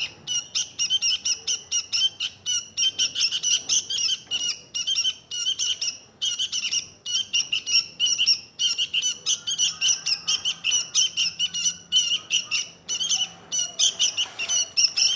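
Sooty-headed bulbul (kutilang) singing in a rapid, unbroken run of short chirps, several a second.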